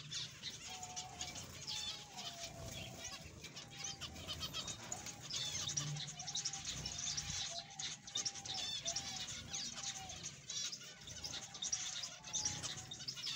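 A flock of zebra finches calling: a continuous run of short, overlapping chirps and calls, with wing flutters as birds fly in and land to feed.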